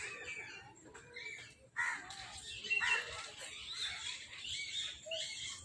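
Birds calling: a run of overlapping calls and chirps, with two louder calls starting sharply about two and three seconds in.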